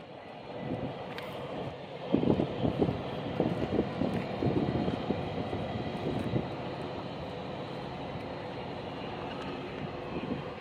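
Low rumble of an approaching CSX freight train's diesel locomotives, with irregular louder thumps through the first half before it settles to a steady rumble.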